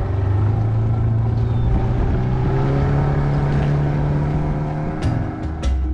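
Motorized wooden longboat's engine running steadily under way, its low drone rising slightly in pitch midway as it picks up speed. A few sharp clicks come near the end.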